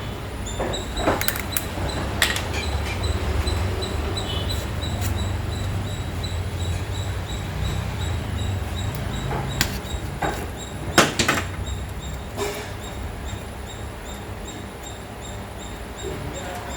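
Scattered sharp knocks and metallic clinks of hand tools working on the motorcycle, the loudest about eleven seconds in, over a steady low rumble. A faint, even high ticking repeats about four times a second throughout.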